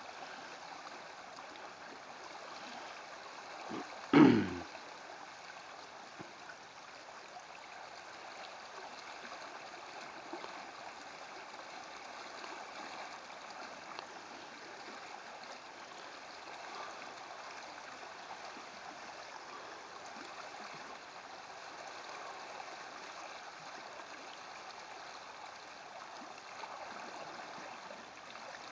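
Steady rush of a river's current flowing over a shallow riffle, with one short, loud sound about four seconds in.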